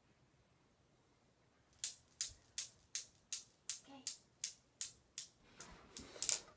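Newton's cradle's steel balls clicking against each other in a steady rhythm, about three sharp clicks a second, starting about two seconds in. Near the end the clicks turn into a jumbled clatter as hands take hold of the balls.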